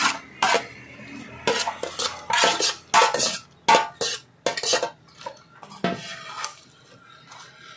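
A metal bowl and spatula clattering against an aluminium wok as wet leafy greens are tipped in and pushed around. A string of irregular clanks runs through the first five seconds, with two more about six seconds in.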